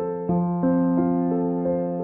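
Background music: a gentle electric piano playing a slow, even pattern of notes over a held bass note.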